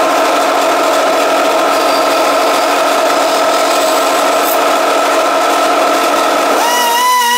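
Band saw running with a steady hum and whine as its blade cuts white myrtlewood. Music with a wavering held tone takes over near the end.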